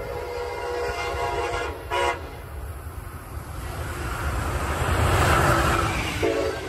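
Amtrak Metroliner cab car's five-chime Nathan K5LA air horn sounding one long blast and then a short one as the train approaches at over 100 mph. The rush of the passing train then builds to the loudest part, with another short horn note near the end.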